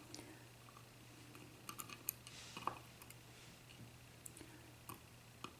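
Faint, scattered light clicks and taps from handling, clustered about two seconds in with a few more near the end, over a low steady hum.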